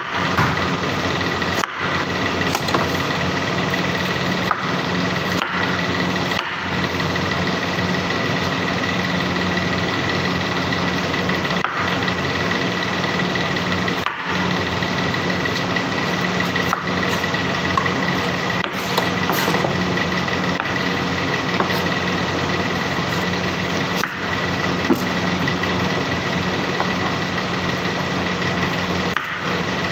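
Steady drone of running machinery, with a constant high whine over a low hum.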